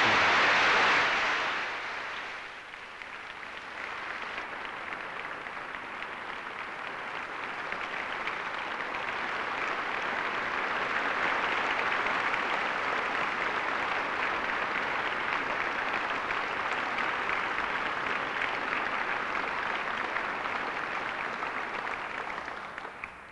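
Large concert-hall audience applauding, loudest in the first couple of seconds, easing off, then swelling again into steady clapping that dies away near the end.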